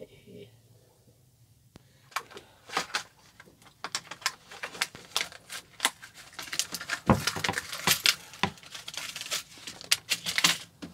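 Small metal press-stud poppers clicking and jingling in their card-and-plastic packet as it is handled, a quick, irregular run of small sharp clicks with some crinkling of the packaging.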